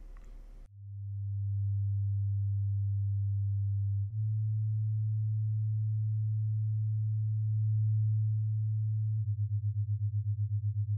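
Pure low sine tones of a binaural-beat demonstration: a steady tone around 100 Hz fades in about a second in and holds, with a brief dip about four seconds in. About nine seconds in a second tone, 108 Hz against 100 Hz, joins it, and the pair beat against each other in a throb of about eight pulses a second, the 8 Hz binaural beat.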